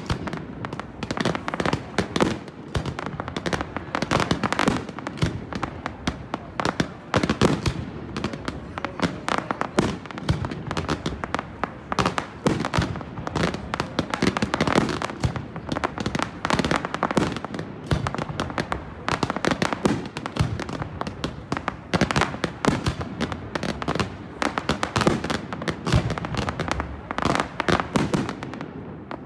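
Fireworks show in a dense barrage: aerial shells bursting in rapid, overlapping bangs, several a second without a break.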